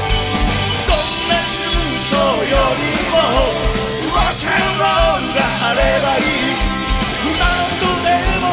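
Live rock band playing loud: a steady kick-drum beat under bass and electric guitars, with a lead line that bends up and down in pitch.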